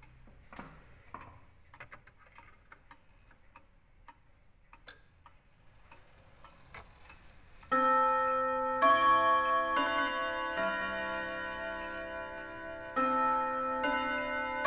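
Antique Junghans W64 pendulum wall clock ticking faintly. About eight seconds in, its hammers begin striking the chime rods, ringing out a slow melody of notes at different pitches that ring on and overlap.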